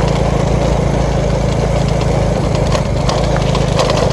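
Motorcycle engine running steadily at a constant pace.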